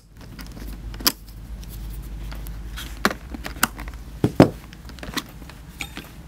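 Small metallic clicks and clinks, about five, as the thin wire levers are worked out of a spring-loaded helmet-headset clamp, over low handling noise; the loudest click comes a little past the middle.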